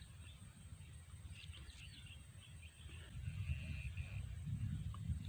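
Faint outdoor ambience: a low wind rumble on the microphone that grows stronger partway through, with a few small bird chirps and a short steady high-pitched note in the middle.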